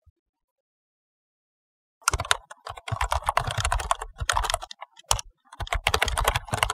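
Rapid typing keystrokes, clicking in quick runs, starting about two seconds in and pausing briefly around five seconds in before going on.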